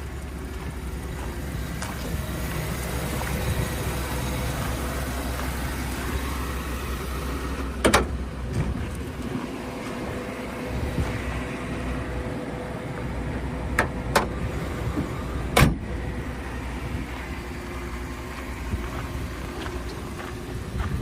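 2007 Chevrolet Avalanche's V8 engine idling steadily. A few sharp knocks come about eight, fourteen and fifteen and a half seconds in.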